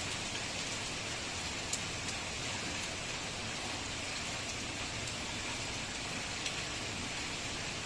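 Steady heavy rain falling on surfaces, a continuous hiss with a few sharp drop ticks.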